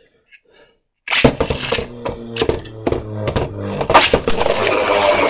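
Two Beyblade spinning tops, a 3D-printed Hero Samuraizor and a Super Hyperion, launched into a plastic stadium about a second in, then whirring with a steady hum and clattering with repeated sharp clicks as they strike each other and the stadium walls.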